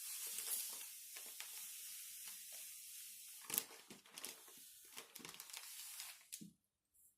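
Granulated sugar being scooped and poured with a bowl used as a measure: a steady grainy hiss with scattered light knocks, stopping about six and a half seconds in.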